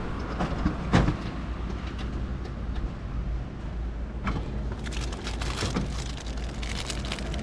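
Handling at a vending machine's pickup flap: a sharp knock about a second in, then clatter and crinkling as a plastic-wrapped jar is pulled out, over a steady low hum.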